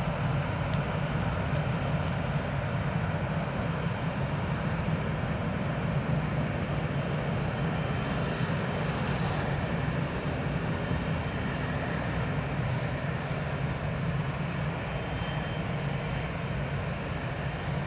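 Cessna Citation Latitude business jet's twin Pratt & Whitney PW306D turbofans running steadily, a constant low-pitched rush of jet noise that does not rise or fall.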